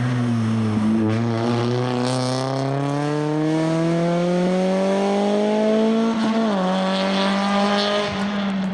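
Honda Civic rally car's engine pulling hard, its pitch rising steadily for about six seconds, then dropping sharply with an upshift and holding steady.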